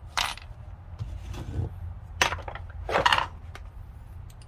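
Loose metal screws clinking and rattling as they are handled, in three short clatters.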